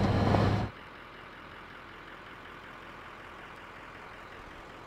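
Car driving on a dirt road, heard from inside the cabin as a steady low hum with road noise, cutting off abruptly under a second in. After that only a faint steady hiss remains.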